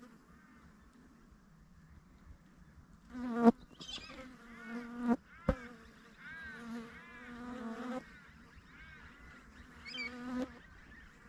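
Flies buzzing close to the microphone, the hum rising and falling in pitch as they circle. A few sharp clicks cut through, the loudest about three and a half seconds in.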